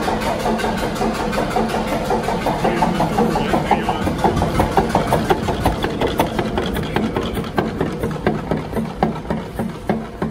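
Stork-Ricardo multi-cylinder diesel engine running with an even, rapid knocking firing beat. Toward the end the beats come further apart and grow fainter as the engine slows.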